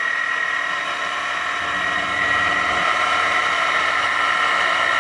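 Chevalier FCL-1840 CNC lathe running a program in auto mode, its spindle turning at about 2200 rpm: a steady machine whine with a strong high tone.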